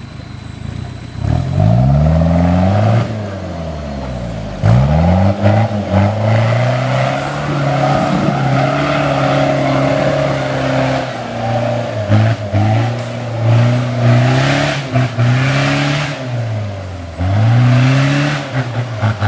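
An off-road 4x4's engine revving under load as it works through rough ground. The revs climb and drop several times, and it holds high revs for several seconds in the middle.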